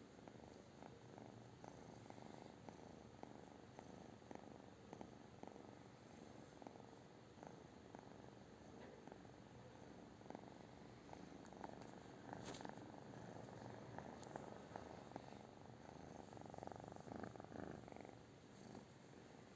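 British shorthair cat purring quietly and steadily, close up. A single sharp click about two-thirds of the way through.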